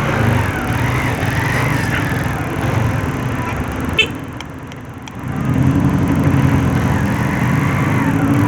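Light motorcycle's engine running in traffic. It falls off with a click about four seconds in, then picks up again and holds a steady pitch.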